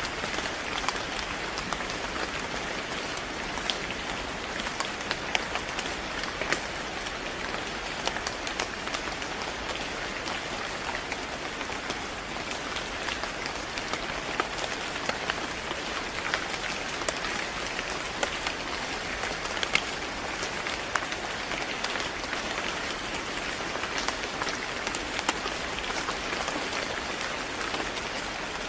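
Steady rain falling on a surface, an even hiss with many individual drops pattering through it.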